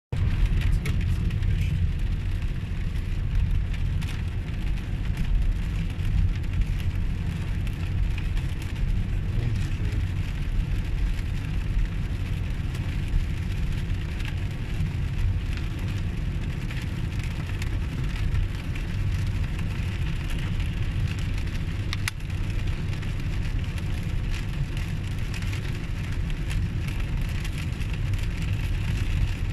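Car cabin noise while driving on a wet motorway: a steady low rumble of engine and tyres, with the hiss of rain and wet road.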